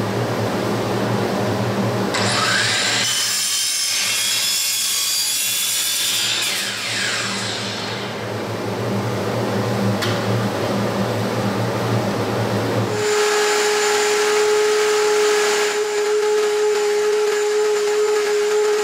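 Electric power sander running while it grinds a chamfer onto the end of a pipe, a steady motor hum under grinding that rises and falls. About 13 seconds in the sound changes to a higher, steady motor whine.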